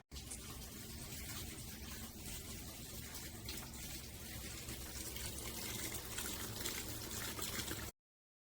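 Water running steadily from a tap, a continuous splashing rush that cuts off suddenly near the end.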